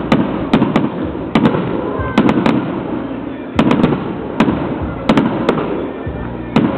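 Fireworks display: aerial shells bursting in quick, irregular succession, about sixteen sharp bangs, often two or three close together, each trailing off in a low rumble. The bangs thin out near the end.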